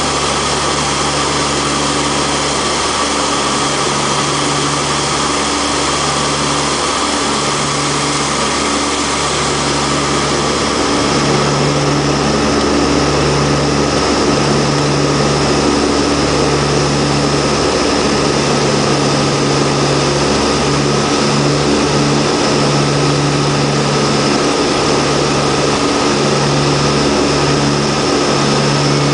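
The Antonov An-32's twin Ivchenko AI-20 turboprop engines heard from inside the cockpit on the approach to land: a loud, steady drone with a low throb that swells and fades every second or two. The drone grows slightly louder about eleven seconds in.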